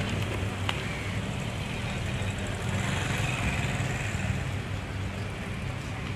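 Motor vehicles: a steady low engine hum over a general traffic haze, with a single short click less than a second in.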